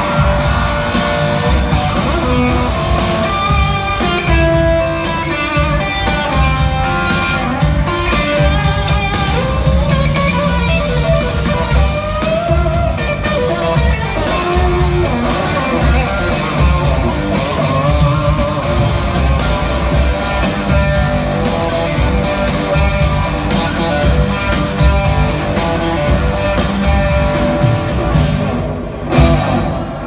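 Live country-rock band playing an instrumental passage, an electric guitar lead over a steady drum beat and bass, amplified through an arena sound system.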